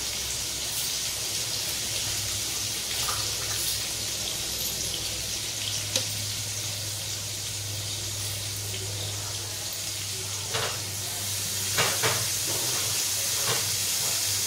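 A batter-dipped slice of bread shallow-frying in hot oil in a non-stick pan, making a steady high sizzle. There are a few light clicks and knocks in the second half.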